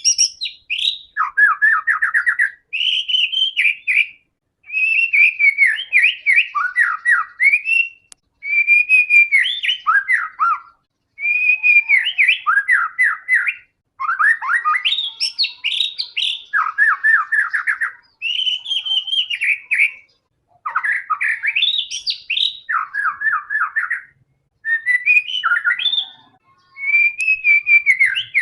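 White-rumped shama (murai batu) in full, constant song: loud phrases of whistled notes and rapid trills follow one another every second or two, with only short breaks between them.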